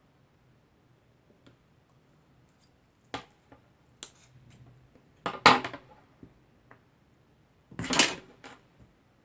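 Hard objects handled and set down on a work surface: a few sudden knocks and clatters, the loudest about five and a half and eight seconds in, over a faint low hum.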